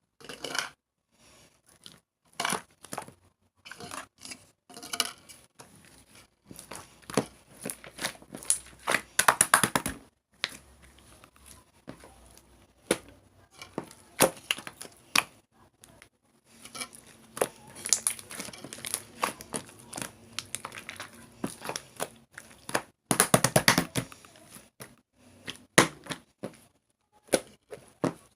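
Slime being squished and pressed by hand, giving irregular crackling and popping clicks, with two denser crackling bursts.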